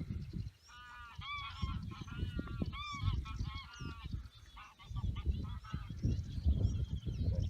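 A flock of geese honking, many calls overlapping, beginning about a second in, over a low rumbling noise.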